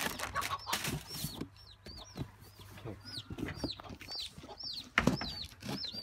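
Chickens calling: a rapid run of short, high peeping calls, several a second, with a sharp knock about five seconds in.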